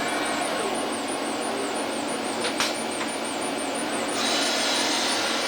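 Steady mechanical whooshing noise of running machinery, with a faint warbling high tone. A single click comes about halfway through, and the hiss gets brighter about four seconds in.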